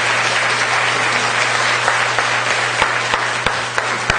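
Audience applauding, a dense steady clapping that thins near the end, where single claps stand out.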